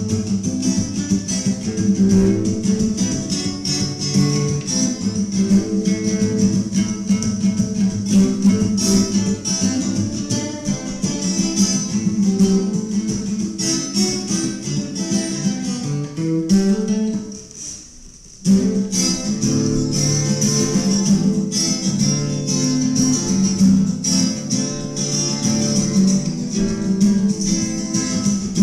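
Acoustic guitar playing a blues tune, plucked and strummed, with a brief drop-off about two-thirds of the way through before the playing picks up again.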